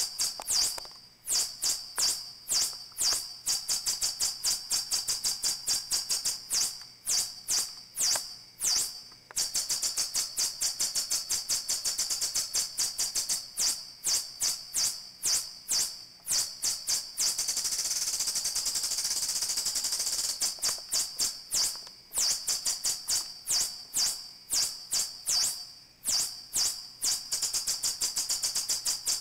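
MacBeth M5/M5N analog modular synthesizer playing a patch of rapid, high-pitched clicks and chirps, several a second, some sliding downward in pitch. For a few seconds past the middle the clicks give way to a steady hiss before starting again.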